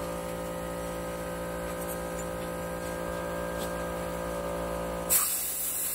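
A steady electrical hum with many pitched lines. About five seconds in, the hum cuts off and a plasma cutter's hiss starts as it begins cutting steel plate.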